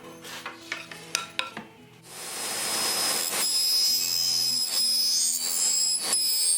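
Several sharp taps and clicks of work on wood, then about two seconds in an electric power tool starts up and runs with a loud steady hiss and a high whine. Acoustic guitar music plays underneath.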